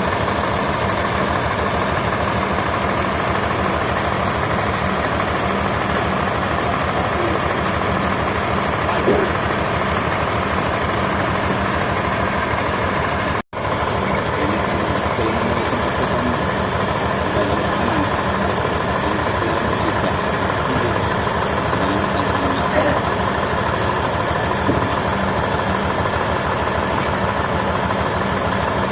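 Steady drone of sawmill machinery with an engine running, unbroken except for a brief cut about halfway through.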